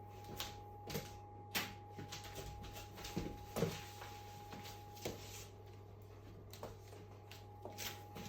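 Scattered light knocks and clicks from a mechanical keyboard and its packaging being handled, spaced irregularly about a second apart, over a steady faint electrical hum.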